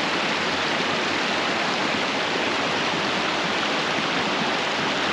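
Shallow creek running over rocks and stones: a steady rush of water.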